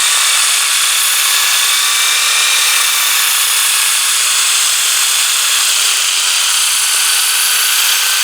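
Knife edge being ground on a spinning 240-grit sandpaper disc driven by a power tool: a steady, loud hissing rasp with a faint motor whine.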